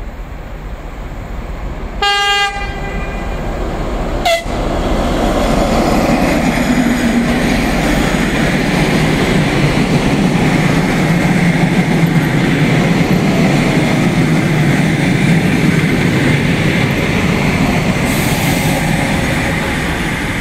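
TEP70 diesel locomotive sounding a short horn blast about two seconds in, then passing close by with its diesel engine running and its passenger carriages' wheels rolling on the rails, the noise growing loud and staying loud.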